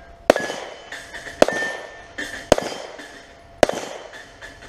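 Four shots from a 9mm Glock 43 pistol, about a second apart, each followed by a brief metallic ring as steel plate targets are hit.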